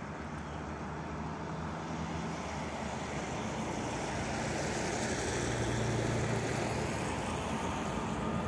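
Distant 2TE25KM two-section diesel freight locomotive approaching: a steady low engine drone that grows slowly louder.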